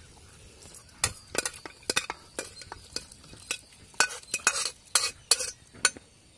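Metal ladle scraping and clinking against metal vessels as cooked chicken pieces are scooped and dropped into a wet masala gravy: a quick run of sharp clatters and scrapes starting about a second in and stopping shortly before the end.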